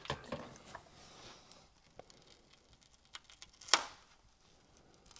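Quiet handling sounds: a few faint clicks and taps as a plastic spray bottle is set down and a flexible steel build plate is bent, with one brief, louder rasp about three and a half seconds in as the TPU shoe is worked against the PEI sheet.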